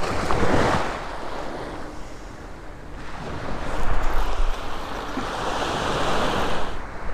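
Surf washing onto a sandy beach, a wave hissing in near the start and a longer, louder wash from about three seconds in, with a low rumble of wind on the microphone underneath.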